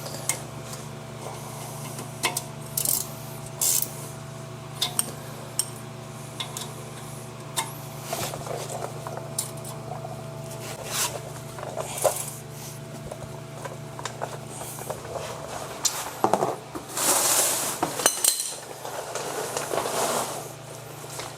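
Hand tools and metal parts clicking and clinking during work on a front disc brake caliper, over a steady background hum, with longer hissing, rustling stretches near the end.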